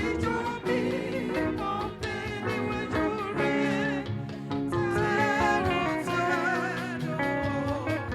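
A hymn sung with guitar and other instrumental accompaniment.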